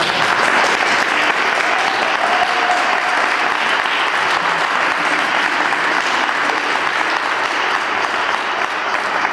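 Audience applauding steadily, a dense sustained clapping that starts abruptly and carries on without a break.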